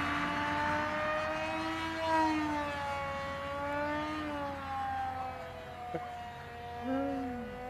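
Electric motor and propeller of a scratchbuilt Depron RC plane whining in flight. The pitch drifts slowly up and down.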